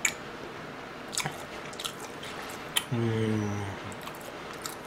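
A person chewing food with the mouth closed, making scattered small wet mouth clicks. About three seconds in there is a short low hummed 'mm'.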